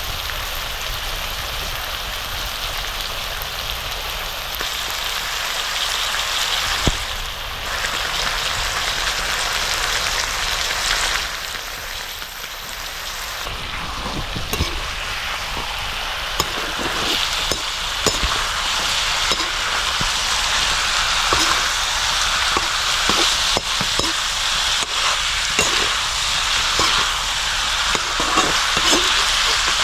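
Pork curry frying in hot oil in a pan, a steady sizzle. From about halfway on, small knocks of a spoon or spatula stirring against the pan join in.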